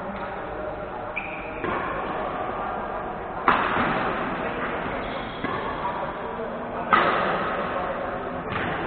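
Badminton rackets striking a shuttlecock during a rally, two sharp hits about three and a half seconds apart with fainter knocks between, echoing in a large sports hall over a murmur of voices.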